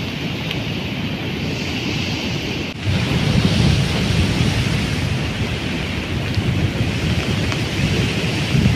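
Storm wind buffeting the microphone as a low rumble, over a steady hiss of heavy rain. It gets louder about three seconds in.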